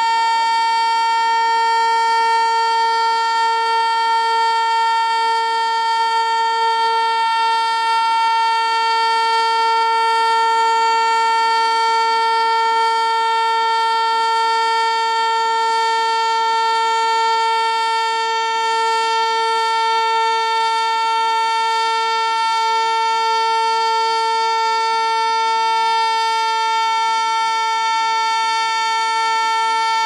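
ASC T-121 outdoor warning siren sounding its steady alert signal: a loud, unbroken held tone with a weaker lower tone beneath it. The siren has missed its cancel tones, so an alert that normally lasts a minute keeps running.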